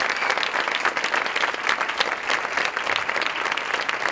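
Audience applauding: steady, dense clapping from a roomful of hands.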